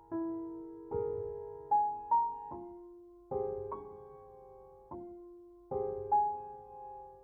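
Background piano music: a slow, gentle melody of struck notes and chords, each ringing and fading before the next.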